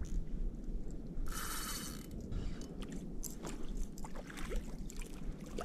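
Irregular light clicks and knocks of fishing gear against a kayak as a just-landed kahawai is handled for release, with a short hiss about a second and a half in.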